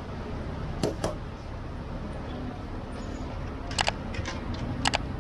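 Steady background noise with three quick pairs of sharp clicks: about a second in, near four seconds and near five seconds.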